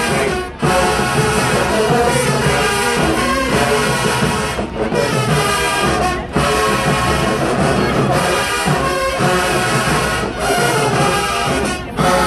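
Brass-heavy marching band playing loudly, horns and drums together, with a few brief cut-offs in the playing.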